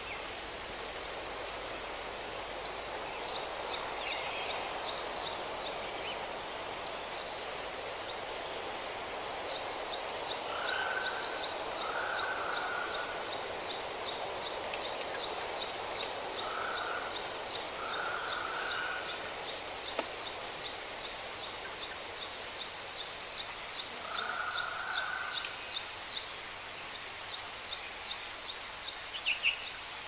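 Wild birds singing: one bird repeats a high, quick note in long unbroken series through the second half, and another gives short, lower-pitched calls a few times, over a steady outdoor hiss.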